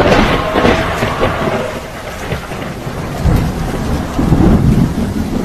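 Thunderstorm: heavy rain with rumbling thunder, the rumble peaking near the start and again about three to four and a half seconds in.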